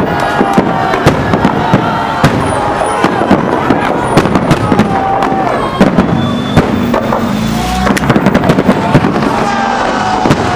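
Fireworks salute: a dense, continuous run of loud bangs and crackling bursts, several a second, with no pauses.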